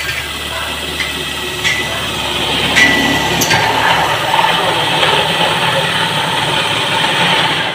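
Cordless drill running as it bores a hole through a steel carrying channel for a rivet. The drilling is steady and grows louder from about halfway, with a few short clicks in the first half.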